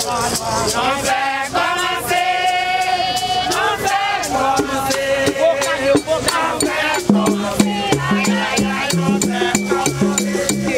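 Vodou ceremonial song: voices singing over a rattle beat, with sharp percussion strokes throughout and a repeating low note entering about two-thirds of the way in.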